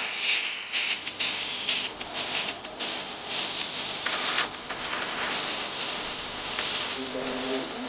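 Pressurised gas hissing steadily from an air conditioner's refrigerant piping.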